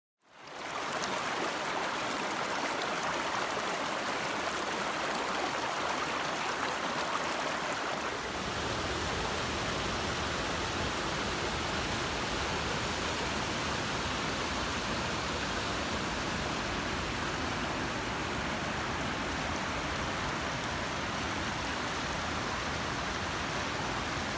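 Small mountain brook-trout stream rushing steadily over rocks and small cascades. About eight seconds in, the rush takes on more low rumble.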